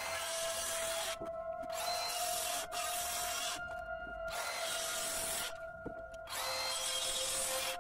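Circular saw cutting into a timber framing member in four short passes, with brief pauses between them.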